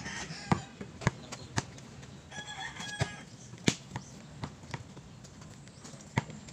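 A basketball bouncing on a concrete court: sharp, irregular thuds, about seven in all. A brief high call sounds in the background about two and a half seconds in.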